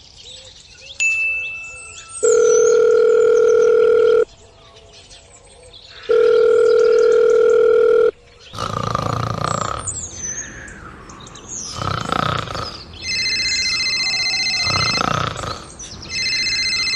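Telephone ringback tone: two long steady beeps of about two seconds each, two seconds apart, as a call rings out. Then come some voice-like cartoon sounds, and near the end a trilling electronic phone ringtone sounds twice.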